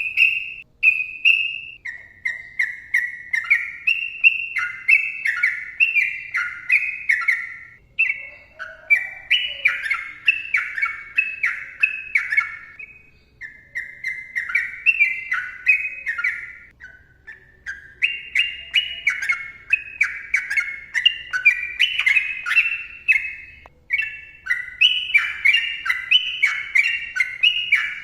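Sooty-headed bulbul singing a long, rapid run of short whistled notes that step up and down in pitch, with only brief pauses every few seconds.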